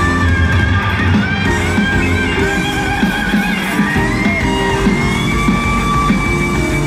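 Live rock band: an electric lead guitar plays bent, wavering notes over bass guitar and drums, gliding up about four seconds in to a long held high note.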